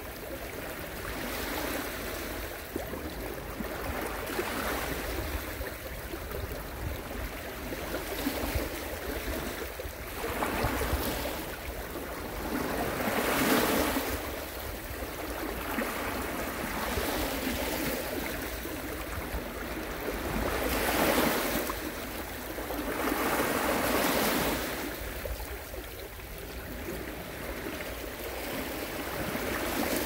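Ocean waves breaking and washing up the shore. The hiss of surf swells and ebbs every few seconds over a steady low rumble, with the biggest surges about halfway through and again about two-thirds of the way in.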